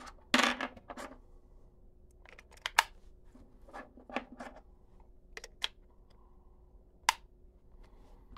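AAA batteries being pressed into a Casio fx-9750GIII graphing calculator's plastic battery compartment against its spring contacts: a scraping clatter about half a second in, then scattered sharp plastic-and-metal clicks over the next several seconds.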